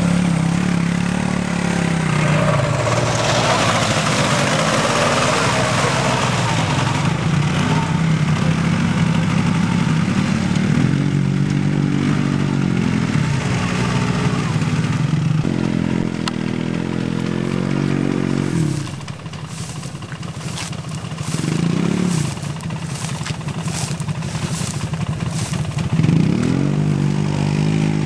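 ATV engines, a Suzuki King Quad among them, revving up and down again and again as the quads churn through deep mud. In the first few seconds there is a spattering hiss of wheels throwing mud and water, and a run of sharp clicks about two-thirds through.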